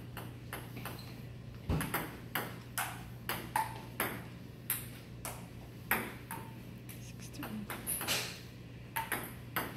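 Table tennis ball rallying between paddles and a JOOLA table: a steady run of sharp ticks, about two a second, some bounces with a short ringing ping.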